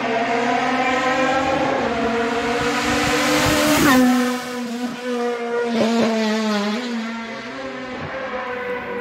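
Race car at full throttle climbing the hill and passing close by. Its engine note rises as it approaches, is loudest just before four seconds in, and drops sharply in pitch as it goes past. It then pulls away up the road with a couple of further drops in pitch.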